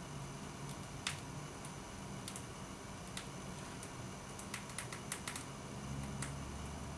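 Pages of a large hardcover art book being turned by hand: sharp paper clicks and snaps, the loudest about a second in and a quick run of them around five seconds in, over a faint steady hum.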